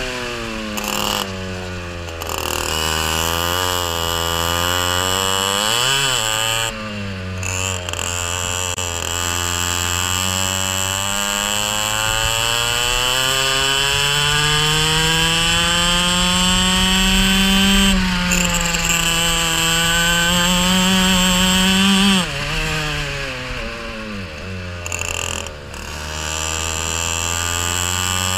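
A racing kart's engine heard from on board, its pitch climbing steadily as it pulls down the straights and dropping sharply when the driver lifts off for corners, most sharply a little over 20 seconds in.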